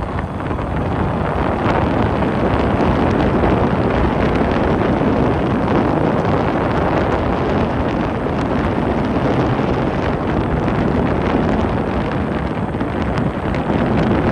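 Wind buffeting the microphone from a moving vehicle, with road noise underneath. It builds over the first couple of seconds, then holds steady.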